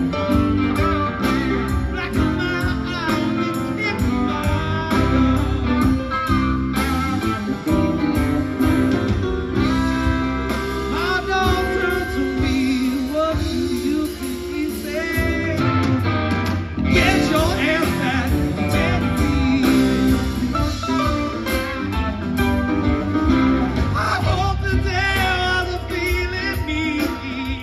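Live rock band playing a bluesy country-rock song: electric guitars, electric bass, a Nord Electro keyboard and drums, with bending lead-guitar lines over a steady groove.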